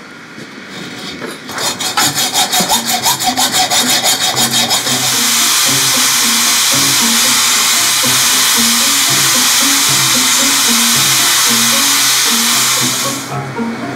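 Hand hacksaw cutting steel in quick even strokes, about four a second, followed by an angle grinder grinding the end of a sword's tang in a steady loud hiss that stops sharply near the end.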